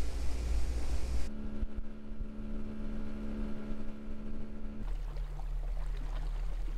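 Bass boat under way: wind and water rush with a low rumble, then a sudden switch to the outboard motor's steady drone at running speed. About five seconds in it changes abruptly to a lower, steady hum.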